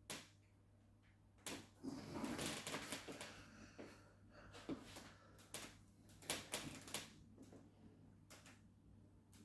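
Scattered clicks and knocks of hands-on chiropractic work, with a stretch of rustling about two seconds in.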